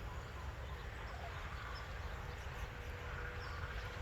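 Faint outdoor background: a steady low rumble with scattered faint high chirps, and a thin steady hum that comes in about three seconds in.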